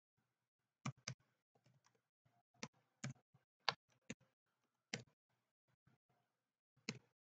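Typing on a computer keyboard: faint, separate keystrokes at an uneven pace, with short pauses between the clusters of keys.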